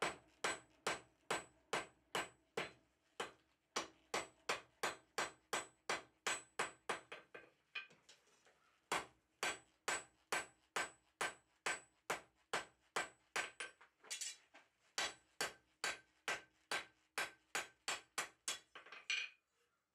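Hand hammer forging a red-hot steel bar on an anvil: steady blows about three a second, with a steady ring from the anvil beneath them. The hammering pauses briefly about eight seconds in, resumes, and stops just before the end.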